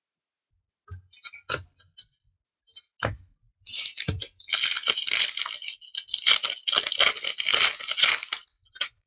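A few light taps of trading cards set down on a table, then about four seconds of crinkling and tearing as a 2015-16 O-Pee-Chee hockey card pack's wrapper is torn open.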